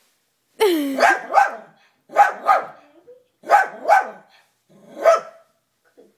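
Dachshund barking repeatedly: about eight sharp barks, mostly in quick pairs, the first starting with a falling pitch.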